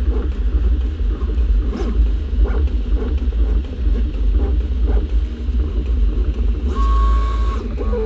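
Original Prusa i3 MK3S 3D printer printing, its X- and Y-axis stepper motors whining at shifting pitches over a steady low rumble. Nearly seven seconds in, a high-pitched tone holds for almost a second as the head traces a long curve.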